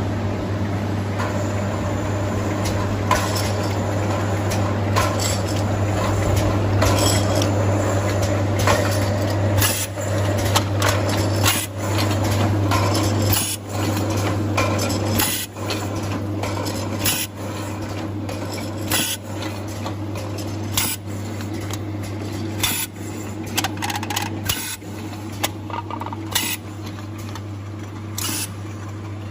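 Beverage can seaming machine running: a steady motor hum with sharp metallic clinks and clatter every second or two as cans and lids are handled.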